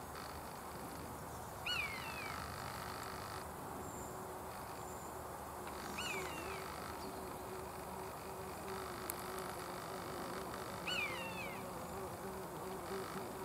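Common buzzard calling three times, about every four to five seconds, each call a short high note falling in pitch. A faint steady hum runs underneath.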